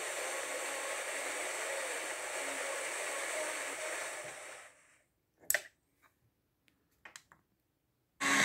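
FM radio static: a steady hiss from the TEF6686 tuner's speaker, tuned to 89.50 MHz where it picks up only noise and no station, the fault in question. About four and a half seconds in the hiss fades out, leaving a sharp click and a few faint clicks, and a loud hiss starts again near the end.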